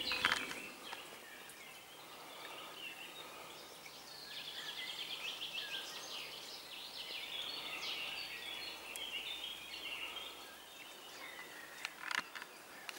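Songbirds singing, a mix of short chirps and warbled phrases, with a rapid trill about four seconds in. A couple of sharp clicks near the end.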